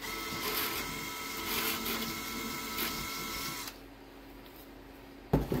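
Cordless DeWalt drill running steadily for about three and a half seconds with a whine as its bit bores an entrance hole for a pull-pull cable through a model airplane's fuselage side, then stopping. A short thump near the end.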